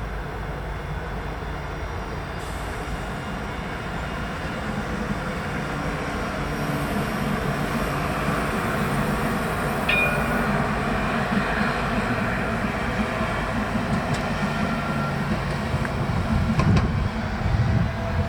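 Tram running by on its rails, growing louder over several seconds. A short high-pitched tone sounds about ten seconds in, and a few sharp clicks follow near the end.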